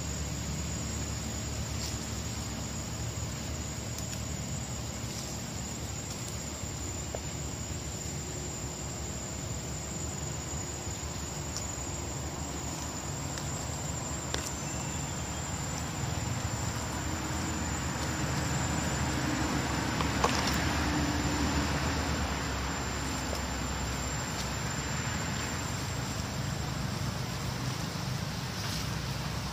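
Steady forest ambience: a low rumble and hiss with a thin, steady high drone of insects above it. A few faint clicks and leaf rustles come and go, a little louder in the middle.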